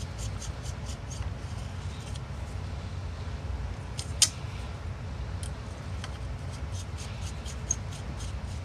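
2.5 mm hex driver turning small steel cap-head screws through a carbon-fibre arm into a brushless drone motor: a string of faint, irregular light clicks and scrapes, with one sharper click about four seconds in, over a low steady hum.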